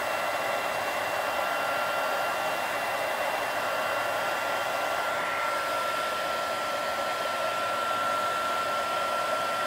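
Electric heat gun running steadily, blowing hot air to shrink heat-shrink tubing over a wire splice: an even rush of air with a faint constant whine from its fan motor.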